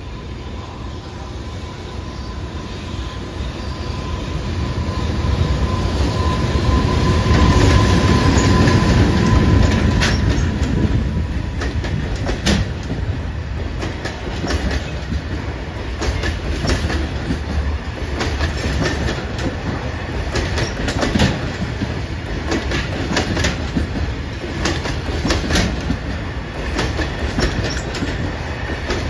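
JR Freight EH500 electric locomotive passing with a freight train. A steady high tone sounds while the rumble swells to its loudest about eight seconds in, then the container wagons roll by with a run of sharp clicks from wheels crossing rail joints.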